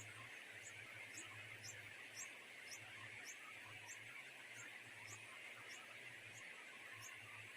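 Faint, high, thin bird chirps, short and slightly falling, repeating about twice a second over a steady background hiss and a low hum.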